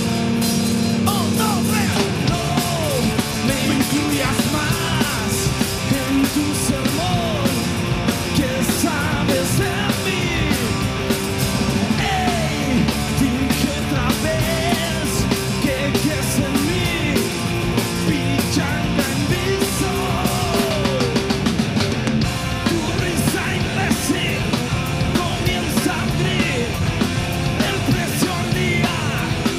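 Rock band playing loud, fast punk-style music, with dense steady drumming and sung or shouted vocals over it.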